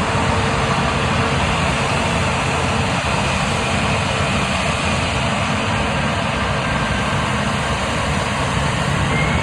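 Jet airliner engines running: a loud, steady noise spread from low rumble to hiss, with no change through the stretch.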